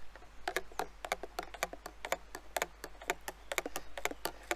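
Long spoon stirring juice in a clear plastic juicer jug, tapping against the jug's sides in quick, slightly irregular clicks, about four or five a second.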